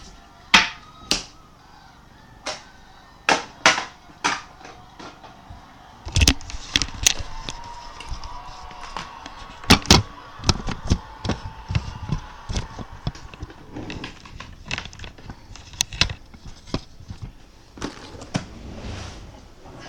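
Handling and clearing away of opened trading-card packaging and cardboard boxes: a series of sharp knocks, clicks and thumps, sparse at first and turning into busier clatter and rustling from about six seconds in. Faint background music runs underneath.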